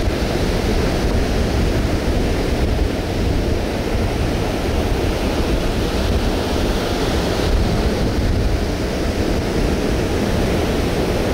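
Ocean surf breaking and washing up a sandy beach, a steady rushing noise with no let-up, with wind buffeting the microphone.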